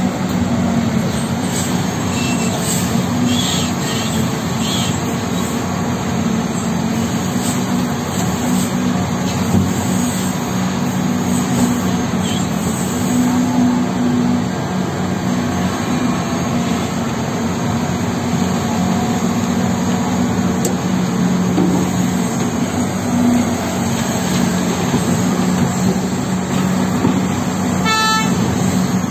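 Heavy diesel machinery of a mining excavator and haul truck running steadily with a continuous low hum. A short, rapid series of horn toots sounds near the end.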